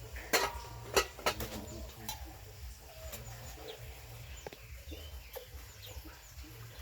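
Dishes and metal utensils clinking and knocking together as they are washed by hand, several sharp ringing clinks in the first two seconds and lighter knocks after. Birds chirp faintly in the background.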